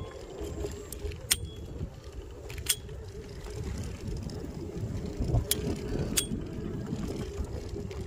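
Electric kick scooter running over a rough dirt track: a steady low rumble of tyres and rattling frame with a steady hum, broken by four sharp clicks that each ring briefly.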